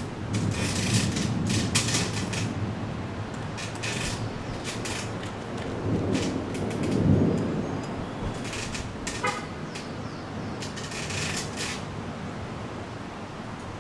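Thunderstorm: a low rumble of distant thunder swells about six to seven seconds in, over the steady hiss of rain with repeated crackling gusts. A short pitched toot sounds about nine seconds in.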